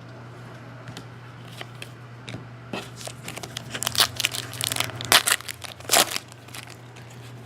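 A trading card pack wrapper being torn open and crinkled by hand: a run of sharp crackles for a few seconds, starting a little under three seconds in.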